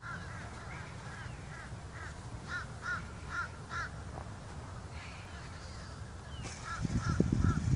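A crow cawing in quick runs of short calls, about two or three a second, with a pause in the middle before the calls start again. A low rumble runs underneath and grows louder near the end.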